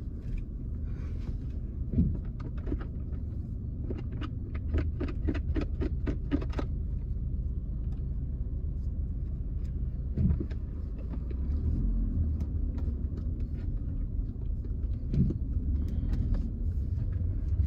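Steady low road rumble inside a moving car, with a quick run of short clicks about four to six seconds in.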